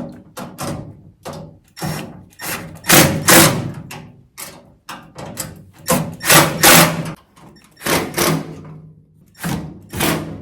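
Milwaukee cordless driver with a square-head bit, spinning down the bolts and nuts of a steel welding cart in a quick series of short bursts, each a second or less, the longer ones carrying a steady motor tone.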